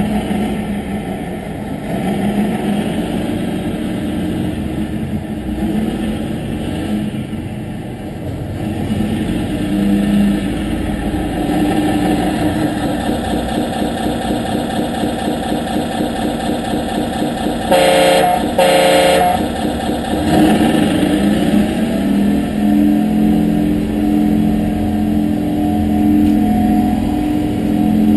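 Simulated bus engine sound from a 1:14 scale RC bus's onboard sound module, played through a small speaker, running and changing pitch as the model drives. Two short horn blasts about two-thirds of the way through, then the engine note rises and holds higher.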